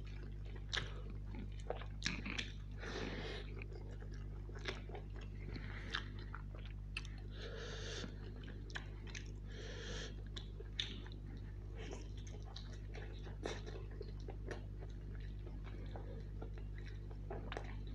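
Close-miked, wet chewing and lip smacking of a man eating biryani and chicken curry by hand, with scattered sharp mouth clicks and the soft squish of fingers working rice and chicken, over a steady low hum.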